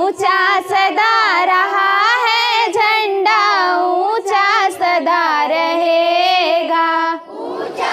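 A single child's voice singing solo, a wavering melodic line held almost continuously, which stops about seven seconds in.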